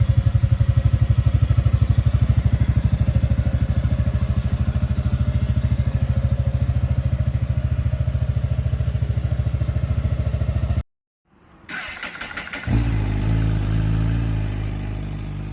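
Honda Forza 250 scooter's single-cylinder engine idling steadily through a BEAMS aftermarket silencer, with an even pulsing exhaust beat. The sound cuts off abruptly about eleven seconds in, and a different steady hum with a faint pitch starts a couple of seconds later.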